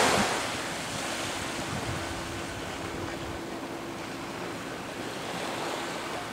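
Small waves breaking and washing on a sandy beach, a steady surf noise, with wind buffeting the microphone.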